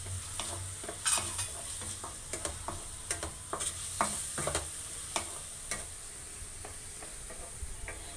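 Wooden spatula stirring and scraping chopped onion and tomato around a metal kadai, tapping the pan again and again, over a steady sizzle of frying oil. The taps thin out in the last couple of seconds.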